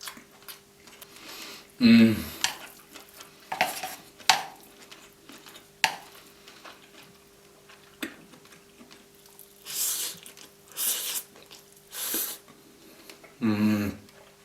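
A person eating fried noodles, slurping noisily, with three loud slurps one after another near the end, smaller slurps and clicks of cutlery and chewing, and short hummed murmurs of enjoyment about two seconds in and again near the end.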